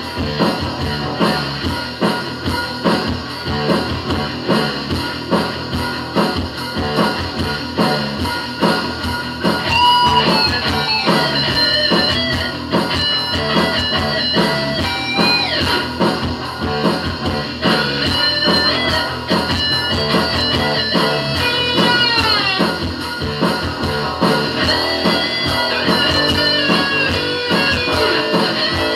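Electric guitar being played: a steady picked rhythm with string bends from about ten seconds in and a long downward slide about twenty-two seconds in.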